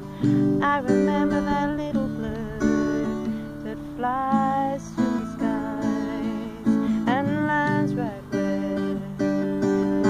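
A woman singing a ballad to her own acoustic guitar. The guitar chords ring steadily underneath, while the voice holds notes with vibrato and slides into them, in short phrases.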